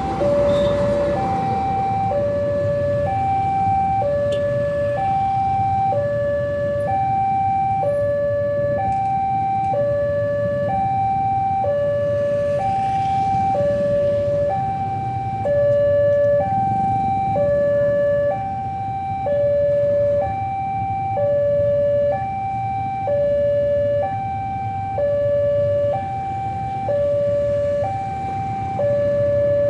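Electronic level-crossing warning alarm sounding steadily, alternating a higher and a lower tone about once a second, the signal that the crossing barriers are down. A low steady rumble of idling motorcycle engines lies underneath.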